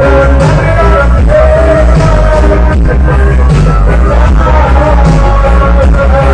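Reggae with a sung vocal line and heavy bass, played very loud through a large dance-hall sound system (a radiola).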